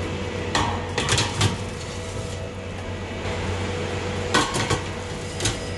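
Metal sheet trays of frozen cookie dough scraping and clattering as they slide onto the racks of a commercial oven, in two short bouts, over a steady machine hum.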